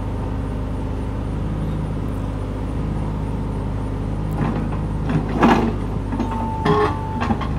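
Mini excavator's engine running steadily while its hydraulic arm and bucket work a large limestone block into place. From about halfway in come a few knocks and scrapes, the loudest at about five and a half seconds, with a brief high squeal near the end.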